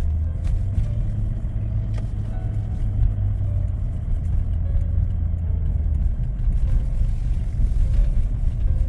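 Steady low rumble of a car's engine and tyres heard from inside the car while driving.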